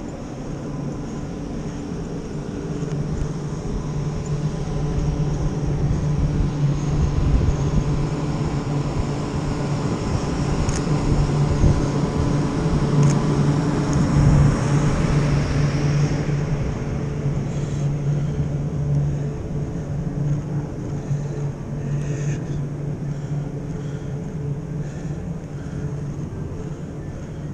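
Low steady engine drone of traffic, swelling to its loudest about halfway and fading again. Two short clicks stand out near the middle.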